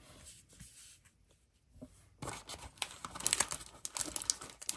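Crinkling and rustling of foil trading-card pack wrappers being handled, starting about two seconds in, after a few faint taps of cards being set down.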